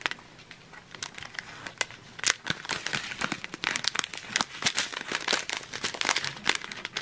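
Small clear plastic zip-lock bags of round diamond-painting drills crinkling as they are handled and flipped through one by one. Scattered crackles at first, then a dense run of crinkling from about two seconds in.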